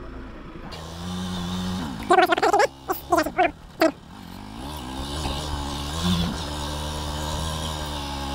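Motorcycle engine running in a low gear on a rough dirt road, its pitch rising and falling with the throttle. A few loud, short bursts of sound come about two to four seconds in.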